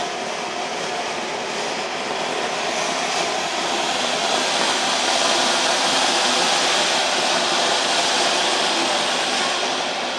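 Anar (flower pot) ground-fountain fireworks spraying sparks with a steady, loud rushing hiss that swells a little in the middle and eases slightly near the end.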